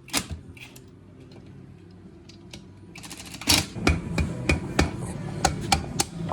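Hand tools clicking and knocking on metal engine parts. A low steady hum runs under a few faint clicks, then about three seconds in a quick series of sharp taps and knocks begins, several of them loud.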